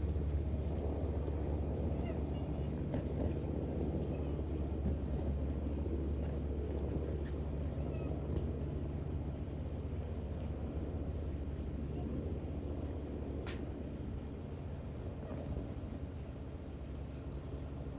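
Crickets trilling in a steady, very high, rapidly pulsing drone, over a low steady hum.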